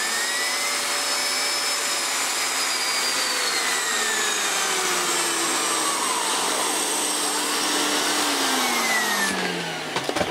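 Miele S7 upright vacuum cleaner running with suction through a Miele Turbo Mini air-driven turbo brush: a steady rush of air, with the turbine's whine gliding slowly up and then back down in pitch. Near the end the high part of the sound falls away and a few clicks follow.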